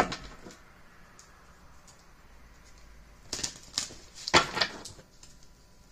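Tarot cards being handled: a sharp click at the start, then two short bursts of quick light clicks and rustles about three and a half and four and a half seconds in.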